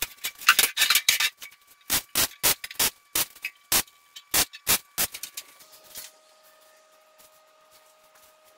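A series of sharp clicks or knocks, about two to three a second and not quite even, over a faint steady tone; they stop about six seconds in.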